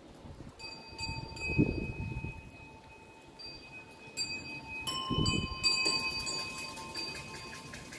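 Small metal bells hanging from a shrine roof, struck by the breeze: several light strikes, each ringing on long and steady at two main pitches. There are two low bumps on the microphone, the louder about a second and a half in and another about five seconds in.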